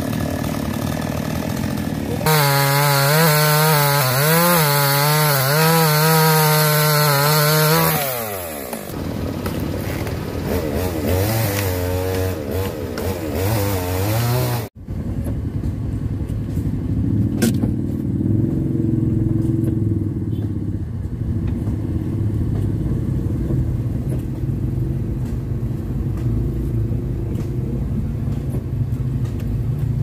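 Two-stroke chainsaw cutting a fallen tree trunk, its pitch wavering as the chain bites, then throttled back to idle. After an abrupt break, a motorcycle engine runs steadily at low speed.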